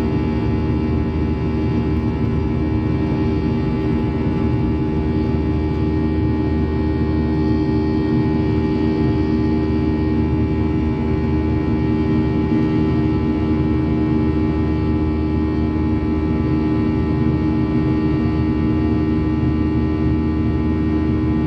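Boeing 737-900ER's CFM56-7B turbofan engines at climb thrust just after takeoff, heard inside the cabin: a steady drone with several steady tones held over it, unchanging throughout.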